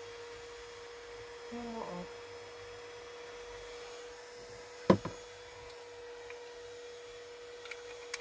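Small handheld battery fan running with a steady hum. A single sharp knock about five seconds in.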